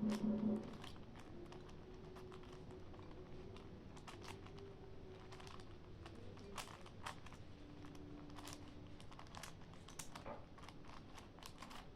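Plastic 5×5×5 Rubik's cube being turned fast, its layers snapping round in quick, irregular clicks during the last moves of a solve. A short tail of background music sounds at the very start.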